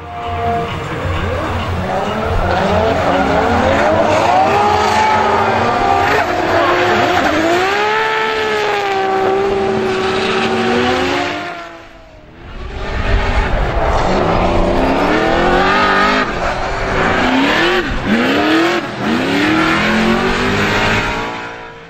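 Drift cars' engines revving up and down through a slide, with tyres squealing. About halfway the sound falls away briefly, then another run follows with quicker, sharper rises and falls in revs.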